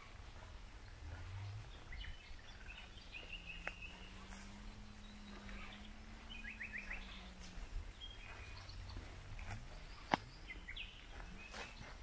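Small birds calling now and then in woodland: short chirps, a brief trill, and a quick run of chirps, over low outdoor background noise. A single sharp click comes about ten seconds in.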